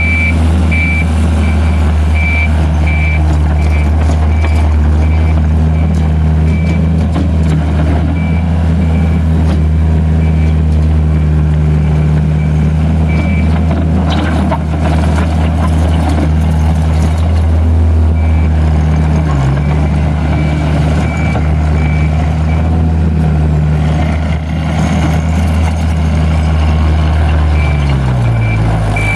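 Takeuchi TL130 tracked skid steer's diesel engine running steadily, with its high backup alarm beeping repeatedly in spells. The engine note sags and recovers twice.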